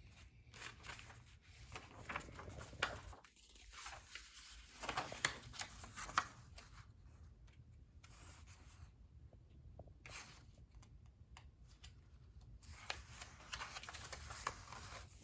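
A picture book being handled and its paper pages turned: soft rustles and scrapes in several spells, with a few sharp ticks and quieter gaps between.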